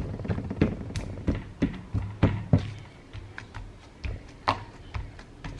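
Fingers poking and pressing into soft white slime, making irregular small sticky pops and clicks: several close together in the first half, fewer later.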